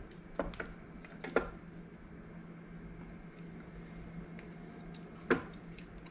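Wooden spatula stirring cooked black beans in the stainless-steel inner pot of an Instant Pot: soft wet squishing with a few light taps in the first second and a half, and one sharper knock against the pot about five seconds in. A faint steady hum runs underneath.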